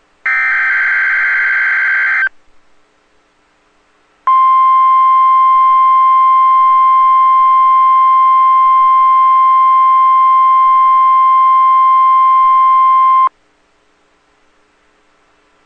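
NOAA Weather Radio Emergency Alert System test: a two-second burst of SAME header data tones, then after a two-second gap the 1050 Hz warning alarm tone. The alarm is one steady tone held for about nine seconds, and it cuts off abruptly. The signal is sent as a required weekly test.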